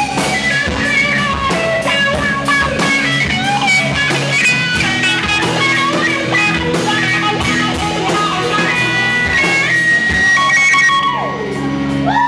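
Live rock band playing an instrumental passage, an electric guitar carrying the melody over bass and drums. The cymbal strokes drop out about a second before the end.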